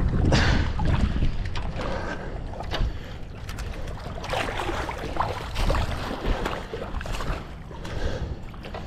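Wind buffeting the microphone, a gusty low rumble that is strongest at the start, over small waves lapping against the rocky shoreline.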